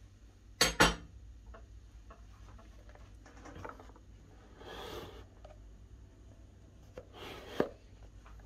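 Kitchen clatter of utensils and dishes: two sharp clanks just under a second in, then a few softer scraping sounds and another knock near the end, over a faint steady hum.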